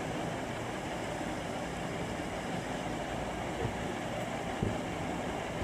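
Steady background hiss with a few faint taps in the second half.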